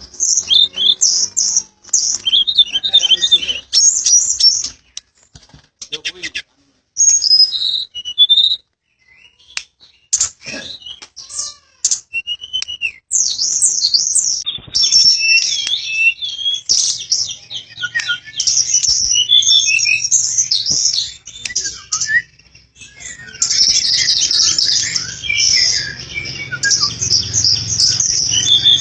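Tledekan gunung flycatcher singing in full voice: rapid, high, twittering phrases of chirps and short whistles, in long bursts broken by brief pauses.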